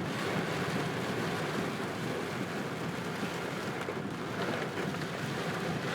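Very heavy rain falling on a moving car, heard from inside the cabin as a steady, dense hiss, mixed with tyres running through water on a flooded road.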